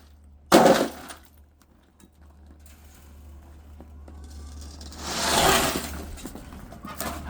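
Ice being broken out of a frozen chicken water container, with one sharp crack and clatter about half a second in. A longer rush of noise swells and fades about five seconds in.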